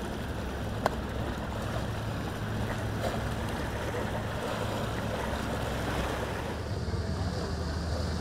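Steady low hum of boat engines under the wash of waves and wind buffeting the microphone, with one sharp click about a second in.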